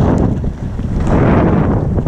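Wind buffeting the microphone of a skier moving downhill, mixed with the hiss of skis sliding on packed snow, swelling twice.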